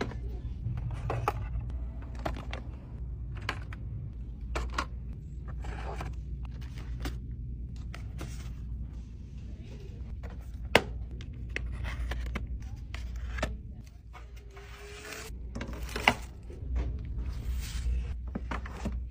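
Store goods being handled: irregular taps, clicks and knocks as bottles, boxed items and books are picked up and set down in a shopping cart and on shelves, over a steady low hum. Two sharper clicks stand out, one around the middle and one later.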